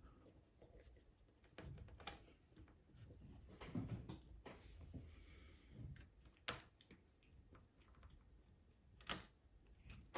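Faint, scattered clicks and taps from a small screwdriver working the tiny mounting screws of a laptop's LCD screen, with the screws and tool being handled and set down.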